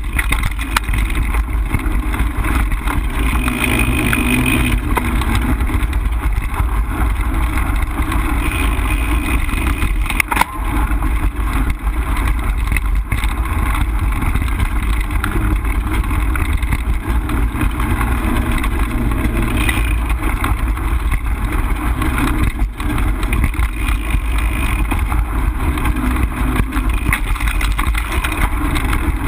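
Mountain bike riding along a dirt singletrack: a steady, loud rumble of wind on the action camera's microphone and tyres on dirt, with scattered clicks and rattles from the bike over bumps.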